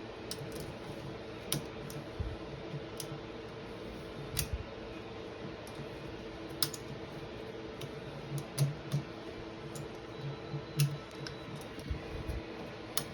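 Ratchet strap mechanism clicking and knocking at irregular intervals as it is worked to lower a side-by-side engine, over a steady low hum.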